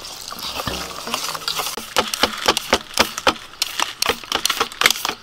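Wire whisk stirring batter in a stainless steel bowl, then, from about two seconds in, a julienne peeler scraping down a raw carrot in quick repeated strokes.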